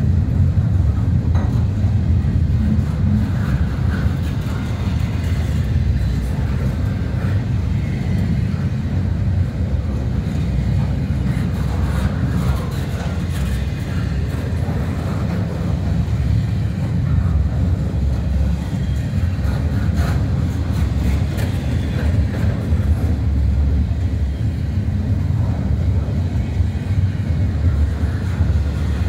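Double-stack intermodal freight train cars rolling past, a steady low rolling noise of steel wheels on the rails.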